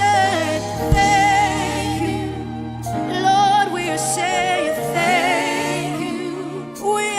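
Gospel praise-and-worship music: sung vocals with vibrato over a keyboard and bass accompaniment.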